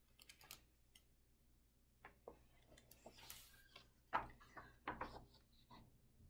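Faint handling of a hardcover picture book: a short paper rustle as a page turns, then a few soft taps and clicks.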